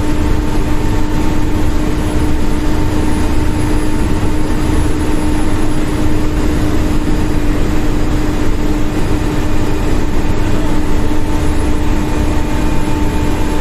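Inside the cabin of a vehicle driving along a highway: steady engine drone and road noise, with a constant low hum.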